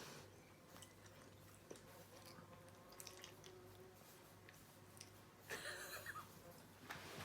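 Faint, scattered mouth sounds of a small child chewing food, soft clicks over a low steady hum, with a brief louder rustling noise about five and a half seconds in.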